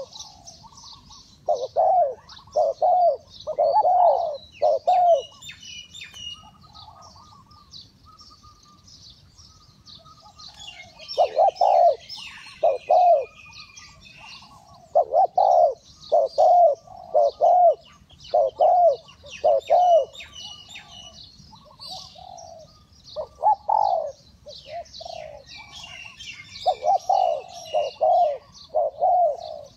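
Spotted dove cooing in repeated phrases of short, low, hollow coos, several phrases with pauses between. Small birds chirp faintly and continuously in the background.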